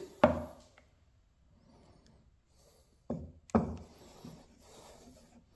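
Wooden spoon stirring runny batter in a bowl, with two short knocks or scrapes against the bowl about three seconds in.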